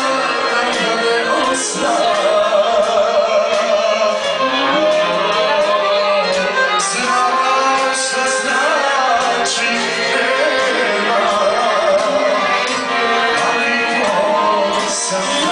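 Live Serbian folk music: a man sings a wavering, ornamented melody into a microphone over a violin played close by.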